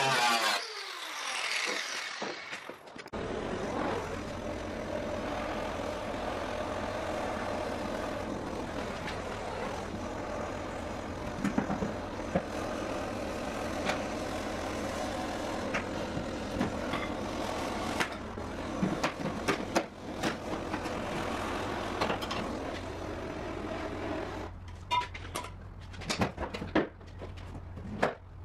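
An angle grinder working on the aluminium Ford F-150 truck bed winds down and stops in the first couple of seconds. A steady machine noise with a low hum and scattered clicks and knocks follows for about twenty seconds, giving way to a few light taps near the end.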